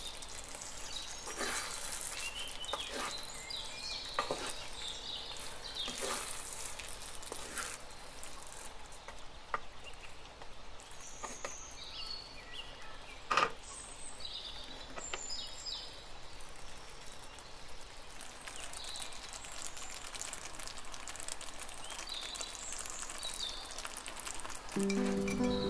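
Brussels sprouts in a creamy sour-cream sauce simmering and sizzling with small pops in a nonstick frying pan. A wooden spatula stirs through them and gives one sharp knock about 13 seconds in. Background music comes in near the end.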